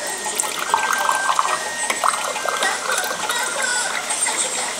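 Water pouring from a water dispenser's tap into a glass cup, starting about half a second in.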